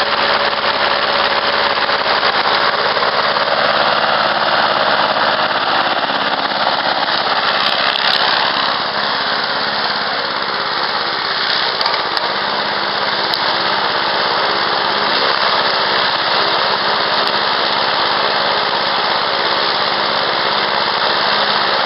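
Honda single-cylinder four-stroke lawn mower engine running steadily at a constant speed while the mower cuts grass and drives slowly across the lawn.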